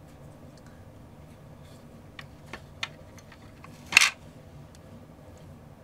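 Small clicks and fiddly handling of a wire connector and a lithium-polymer pouch battery as a charger board's lead is pushed onto the battery's wires: a few faint ticks, then one louder sharp click about four seconds in.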